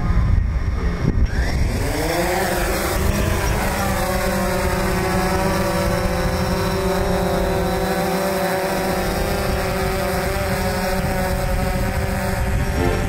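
DJI Phantom quadcopter's propellers running as it lifts off: about a second and a half in, a stacked whine sweeps in pitch and then settles into a steady hovering buzz, over low rushing air from the rotor wash.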